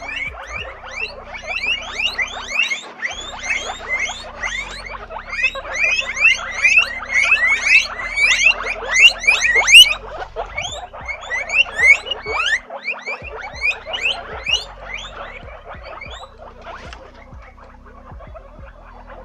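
Guinea pigs wheeking, the high, repeated squeal they use to beg for food: rapid, overlapping calls several times a second that thin out and grow quieter over the last few seconds.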